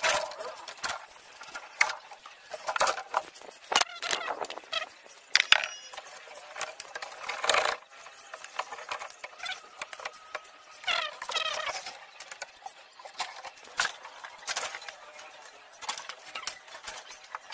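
Thin sheet metal and tubing of a Haier chest freezer's inner liner and cooling coil clinking, scraping and rattling as they are cut and pried out with pliers, in a string of irregular sharp knocks. The liner is being stripped to replace a cooling coil that has corroded and leaks.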